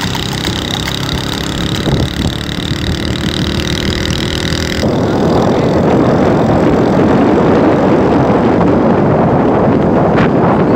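Motor-vehicle engine running with a steady hum. About five seconds in it cuts suddenly to louder rushing wind and road noise of a vehicle on the move.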